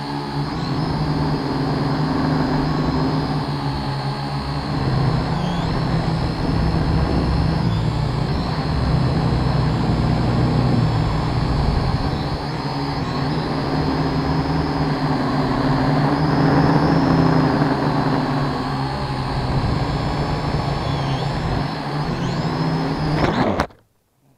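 Quadcopter's electric motors and propellers buzzing right next to its onboard camera, the pitch drifting up and down with the throttle. The buzz cuts off suddenly near the end as the drone comes down upside down.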